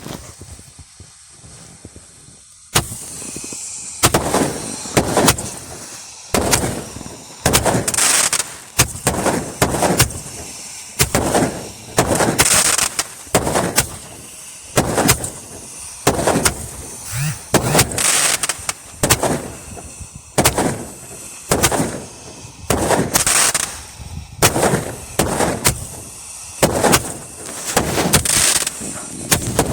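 Fireworks going off shot after shot: a run of sharp bangs, one every half-second to second, starting about three seconds in, with a brighter crackling burst about every five seconds.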